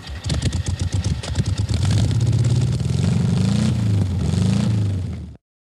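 A vehicle engine running, with a rapid uneven clatter at first, then revving up and down twice before the sound cuts off abruptly near the end.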